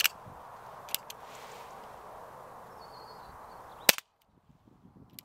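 A couple of small clicks, then a single sharp crack of a Baikal MP-654K (Gen 5 Makarov) CO2 BB pistol firing about four seconds in.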